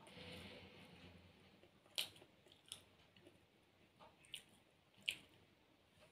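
Faint eating sounds: soft chewing, then a few sharp clicks spaced about a second apart.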